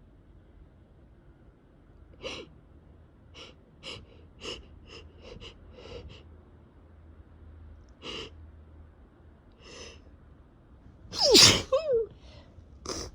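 A person with a head cold and a runny, irritated nose takes a string of short, sharp breaths as a sneeze builds. About 11 seconds in comes one loud voiced sneeze that falls in pitch, and a quick breath follows near the end.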